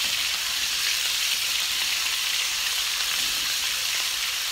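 Raw ground beef frying in hot olive oil, a steady sizzle, as it is broken up in the pan with a spatula. The meat has just gone into the preheated pan and is starting to brown.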